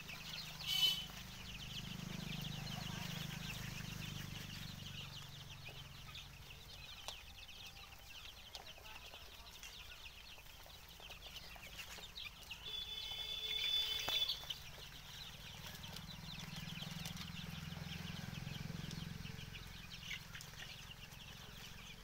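A flock of three-week-old desi chicks cheeping constantly as they feed, with a louder, longer call about thirteen seconds in. A low rumble swells and fades twice underneath.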